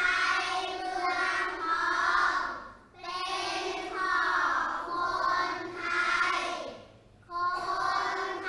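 A class of young children reciting Thai rhyming verse aloud in unison, in a sing-song chant. The verse comes phrase by phrase, with short breaks about three and seven seconds in.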